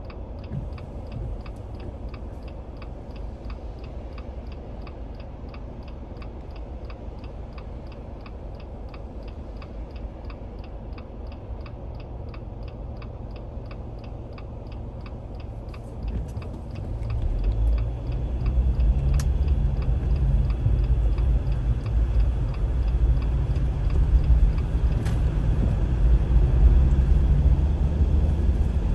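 Car cabin sound of engine and road rumble, with the steady ticking of the turn signal at about three ticks a second. About sixteen seconds in the ticking stops and the rumble grows louder as the car picks up speed.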